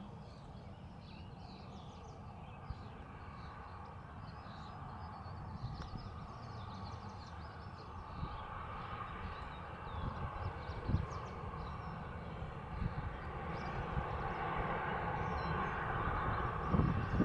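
Jet airliner engine noise building steadily as the aircraft draws nearer, over low wind rumble on the microphone.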